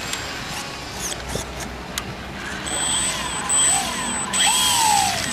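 Radio-controlled model Pilatus PC-6's motor spinning its propeller on the ground, revving up and down in short surges with a high whine from about halfway through.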